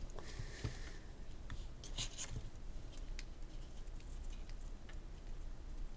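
Light, scattered plastic clicks and handling noise from hands working a plastic action figure and fitting a soft rubber hose to its backpack tank, with a small cluster of clicks about two seconds in.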